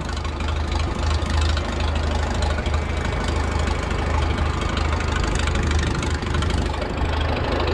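Farm tractor engine running steadily at a low, even speed, a constant low hum with no change in pitch.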